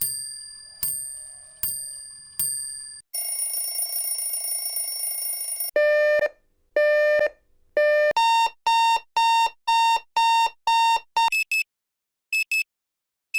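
A run of clock sounds. First a bell is struck four times, each strike ringing out and fading. Then an alarm-clock bell rings continuously for about two and a half seconds. Last comes an electronic alarm clock beeping: three long beeps, then quicker beeps about twice a second, breaking into short pairs near the end.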